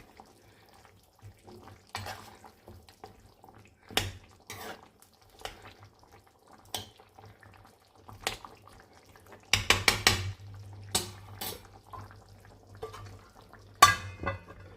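Metal kitchen utensils clinking and knocking against a cooking pan: scattered single clicks, a quick run of clatter about ten seconds in, and a sharp knock near the end.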